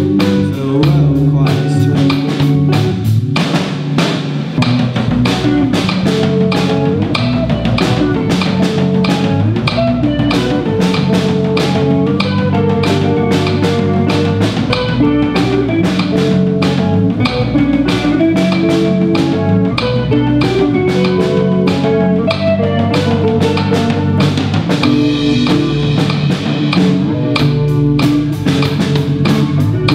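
Live rock band playing an instrumental passage with no singing: electric guitars and bass guitar over a steady beat on a Pearl drum kit.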